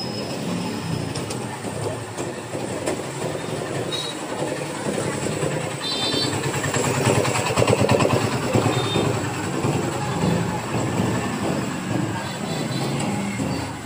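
Busy street noise: a steady vehicle rumble with fast rattling, growing louder toward the middle and easing off again.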